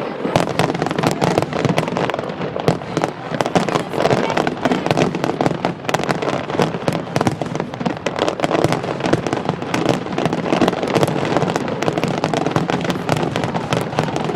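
Fireworks display: a dense, continuous barrage of rapid bangs and crackles at a steady, loud level.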